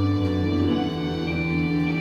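Instrumental music with held chords that change about a second in, without singing: the instrumental close of a children's song.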